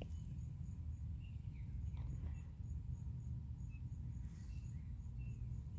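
Outdoor garden ambience: insects chirping in a steady, evenly repeating high pulse, with a few faint short bird chirps, over a low rumble of wind or handling noise on the microphone.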